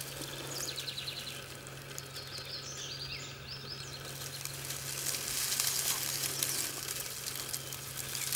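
Dry leaves crackling and rustling as bull snakes writhe through the leaf litter, louder from about five seconds in. A bird sings short, stepped chirping phrases in the first half.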